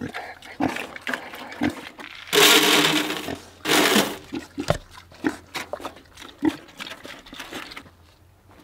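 Pigs eating food scraps: a run of chewing and smacking clicks, with two loud, harsh pig calls about two and a half and four seconds in.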